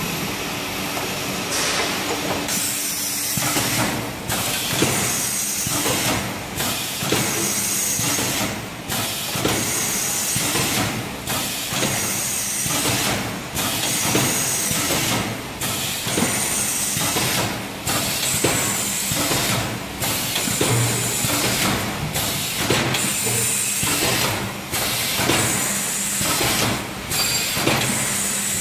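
Automatic plastic-film wrapping and shrink-packaging machine running: a steady hissing mechanical noise of the conveyor and film-wrapping mechanism, with a regular cycle that repeats about every two and a quarter seconds.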